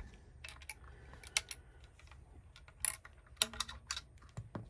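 A few light, scattered metallic clicks and knocks from a Remington Model 10 pump shotgun's action being worked slowly, with a shell being fed through it.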